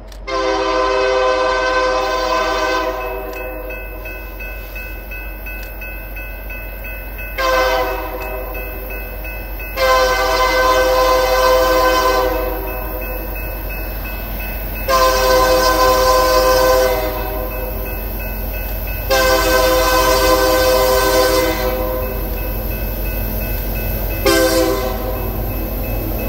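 Horn of an approaching BNSF SD70MAC locomotive sounding a loud multi-note chord in six blasts: a long one, a short one about seven seconds in, three more long ones, and a short one near the end. A steady low rumble of the train runs underneath.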